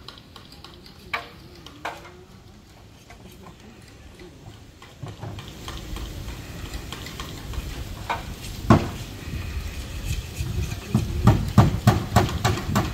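Building work on bamboo siding: scattered sharp knocks and taps, coming in quick runs in the last few seconds, over a low rumble.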